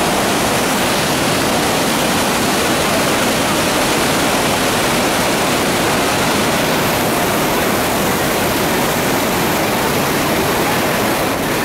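Iguaçu Falls, a massive waterfall pouring, heard from close beneath it: a loud, steady, even rush of falling water and spray.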